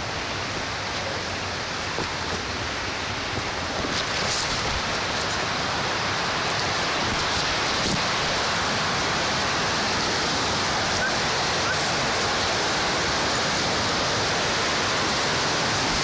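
Steady rush of falling water from a waterfall and its rocky stream, growing a little louder about four seconds in, with a few faint knocks.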